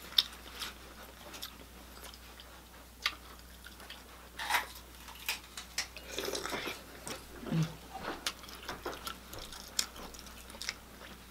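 Close-miked chewing and wet mouth smacking of someone eating boiled seafood, with scattered sharp clicks.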